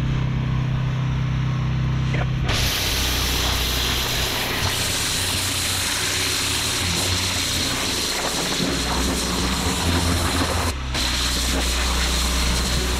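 Pressure washer running with a steady low hum; about two and a half seconds in, the lance is triggered and a high-pressure water jet hisses against block paving, with a brief break near eleven seconds.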